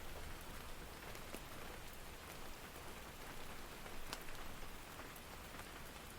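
Steady rain falling on a small cabin, heard from inside: an even hiss with scattered drops ticking on the roof and surfaces, one sharper drop about four seconds in.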